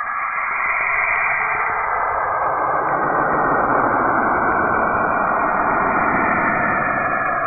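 Sonified space recording presented as the sound of Saturn: a dense, radio-like hiss with faint shifting bands, which fills out lower and grows a little louder about two to three seconds in.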